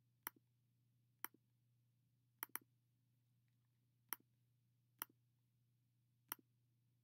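Faint computer mouse clicks, seven in all, roughly a second apart. Two come in quick succession a little over two seconds in, like a double-click, and each click has a fainter release tick just after it. The clicks place the points of a curve shape and then pick a fill colour in a drawing program.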